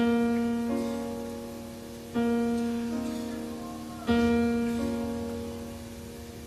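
Background music: slow plucked notes struck about every two seconds, each ringing out and fading, with a softer second note following each one.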